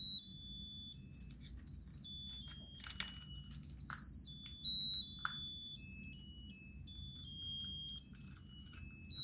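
Musical lotus-flower birthday candle's electronic chip playing a thin, high-pitched beeping melody, one note at a time, with a few faint clicks.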